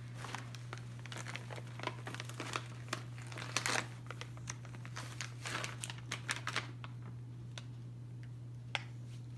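Crinkling and rustling of paper and plastic packaging as a child rummages through a Christmas stocking and handles the wrapped items inside, in irregular bouts that are loudest a few seconds in, over a steady low hum.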